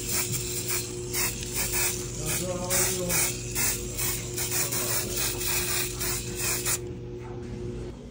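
Aerosol carpet cleaner being sprayed onto a carpet in quick short bursts of hiss, about three a second, which stop abruptly near the end.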